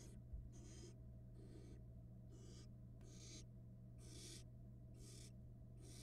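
Barn owl nestlings giving their hissing, snore-like begging calls, short raspy hisses repeated about once a second, over a low steady electrical hum from the nest cam.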